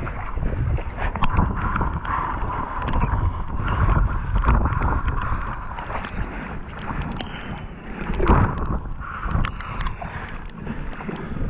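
Strong wind buffeting the microphone in an uneven, gusting rumble, with many scattered clicks and knocks.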